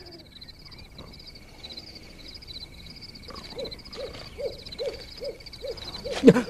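Night-time woodland ambience: an owl hooting, first one long falling hoot, then from about halfway a run of short hoots about two to three a second, over a steady high chirring of insects. A sharp clatter sounds near the end.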